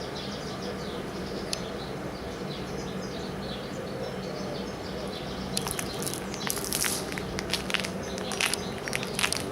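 Small birds chirping over a steady low hum, outdoors; from about halfway through, a run of sharp crackling clicks becomes the loudest sound.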